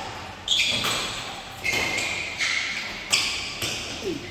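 Badminton rally: a run of four sharp court sounds, racket hits on the shuttlecock and shoe squeaks, each fading off with an echo.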